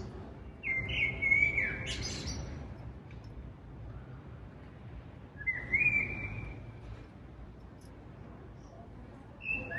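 A bird calling: short whistled phrases, each about a second long, about a second in, again near six seconds and once more at the end, over a low rumble.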